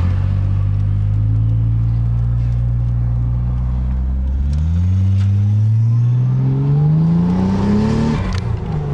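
Toyota 1JZ-GTE twin-turbo straight-six, heard from inside the car's cabin, running steadily and then, about halfway through, pulling hard in one long rising rev. A hiss from the pod-filtered intake and turbos grows with the revs, and the revs drop off sharply near the end.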